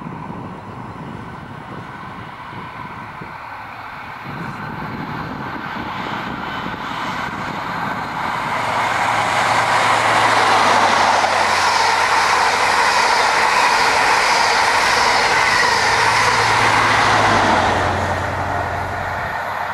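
InterCity 125 High Speed Train with MTU-engined Class 43 power cars passing at speed. The engine hum and the rush of the wheels on the rails build as it approaches, stay loud for about eight seconds as the power cars and coaches go by, then fall away.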